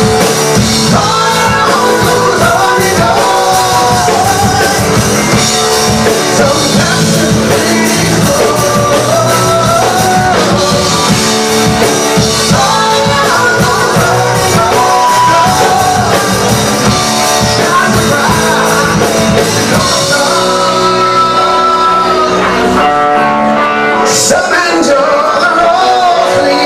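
Rock band playing a song with a lead vocal over electric guitar, bass, keyboards and a drum kit. The drums drop out for a few seconds near the end, leaving held chords, then come back in.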